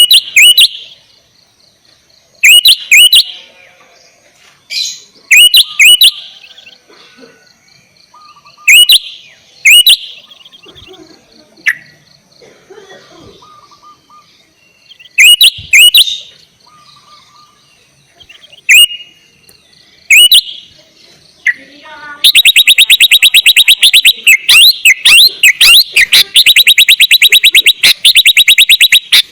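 Sooty-headed bulbul singing: short, sharp whistled notes, mostly in pairs, every second or two. About three-quarters of the way in, a loud, fast rattling trill takes over and keeps going.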